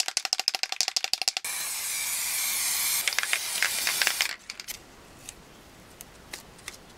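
Aerosol spray-paint can shaken, its mixing ball rattling rapidly for about a second and a half, then sprayed in a steady hiss for about three seconds that cuts off suddenly. Afterwards come faint crinkles as the paper stencil is peeled off.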